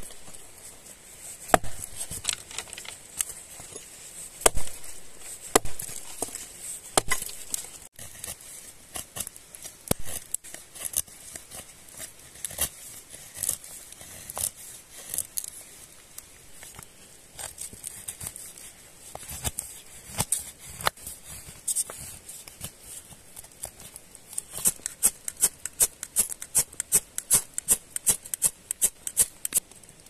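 A hatchet chopping a branch, then a large knife cutting and carving into wood, in single sharp strikes with pauses between them. Near the end the strikes come quickly, several a second.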